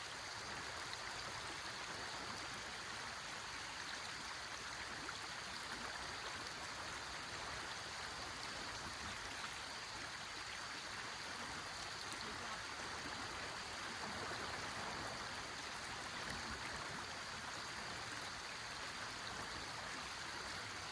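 A river's flowing water rushing steadily, with no separate splashes or knocks.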